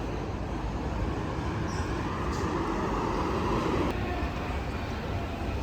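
Steady rumble of a moving vehicle, swelling a little in the middle.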